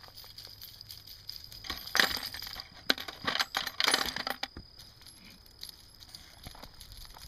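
Spent .22 brass casings clinking and jingling against the wire basket of a Brass Mower rolling pickup tool, in a burst about two seconds in and a longer run of clinks from about three to four and a half seconds in.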